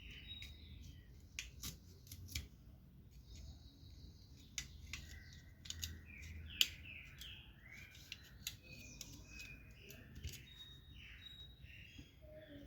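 Faint scattered clicks and snips of a small hand tool working at a blender motor's field coil, uncovering the thermal fuse's lead. Birds chirp in the background throughout.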